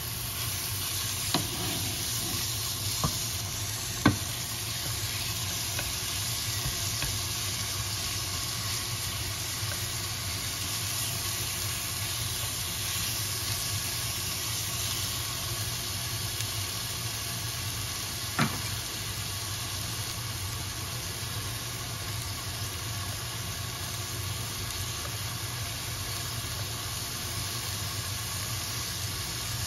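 Food sizzling steadily as it fries in a pan, with a few sharp knocks of a utensil against the pan in the first few seconds and one more about two-thirds of the way through.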